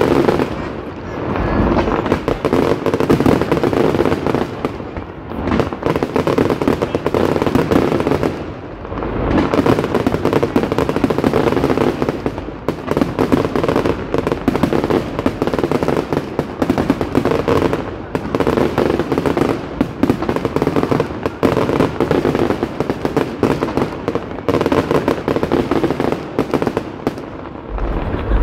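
Fireworks display: aerial shells bursting in a rapid, near-continuous barrage of bangs and crackle, with a few short lulls.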